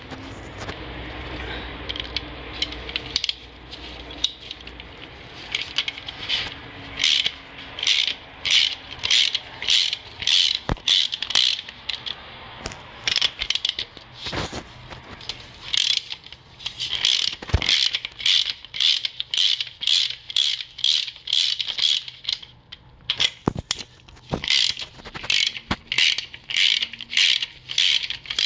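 Ratchet wrench clicking as it turns a spark plug socket on an extension in the cylinder head's plug wells: repeated short runs of clicks, about two a second, with a couple of brief pauses.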